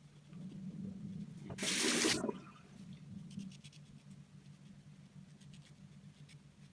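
Double-edge safety razor with a Blue Bird Hi-Stainless blade scraping through stubble in short rasping strokes, with a brief rush of water about one and a half seconds in.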